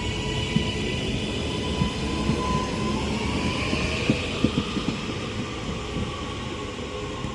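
Northern Class 331 electric multiple unit pulling out of the station, with a steady electric whine over the running noise and irregular clicks from the wheels on the track.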